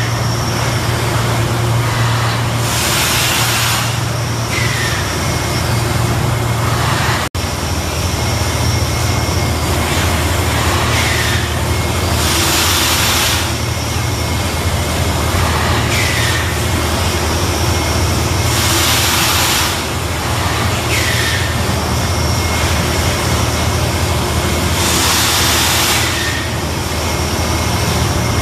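Thermoforming machinery running in a plastics plant: a steady, loud low hum, with a short burst of hissing air every six to ten seconds as the machine cycles.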